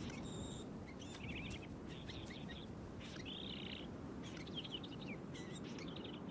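Small birds chirping in short, repeated phrases, over a low, steady background rumble.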